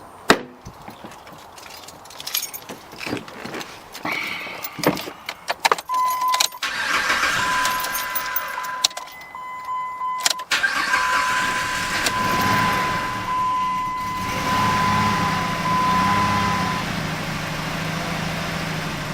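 2005 Jeep Liberty: keys and clicks, then a steady electronic warning tone. About ten seconds in the engine starts and settles into an idle whose pitch wavers up and down, the rough idle the owner is showing.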